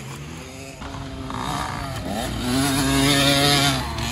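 Youth two-stroke motocross bikes accelerating up a dirt hill past the listener. The engine note rises about two seconds in and is loudest and highest just before the end, as a rider climbs on the throttle.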